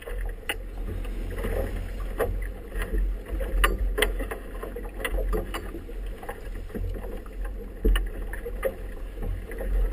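Wind buffeting the microphone, and choppy waves slapping and splashing against a small boat's hull as it runs through rough water. The slaps come at irregular intervals and are sharp, the loudest about four and eight seconds in.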